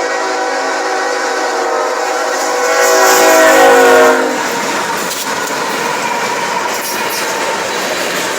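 CSX freight train's locomotive air horn sounding a long multi-tone chord, swelling to its loudest just before it cuts off about four seconds in. The train then rolls past with a steady rumble and clatter of wheels on the rails.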